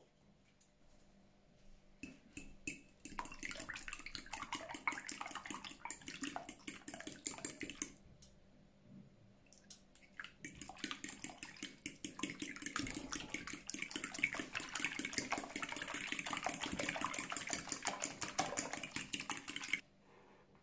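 Breaded chicken nuggets frying in hot oil: a dense crackling sizzle in two stretches with a short lull between, cutting off suddenly near the end.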